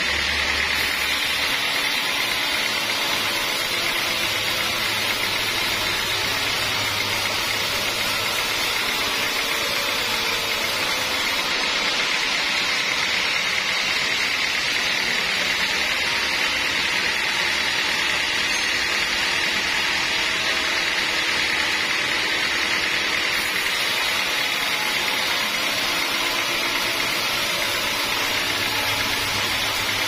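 Vertical band sawmill running steadily as its blade rips lengthwise through an acacia mangium log, an even mechanical hiss and whine of the blade in the wood.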